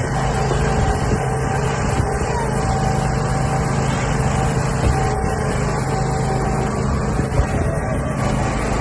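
Riding lawn mower's engine running steadily at an even pitch.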